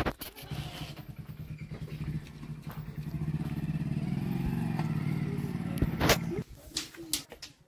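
An engine running steadily, growing louder over a few seconds and then cutting off abruptly about six seconds in. Sharp knocks come at the start and just before it stops.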